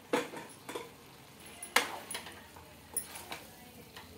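Spatula knocking and scraping against a non-stick pan while chopped tomatoes are stirred into the vegetables: about five sharp clicks, the loudest near the middle.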